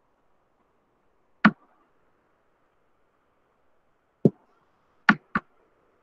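Four sharp taps of a stylus tip on a tablet screen while writing: one about a second and a half in, then three close together near the end.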